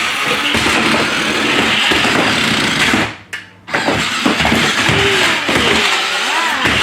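Remote-control toy car driving: its small electric motor and plastic gears whirring. The whirring cuts out briefly a little after three seconds in, then starts again.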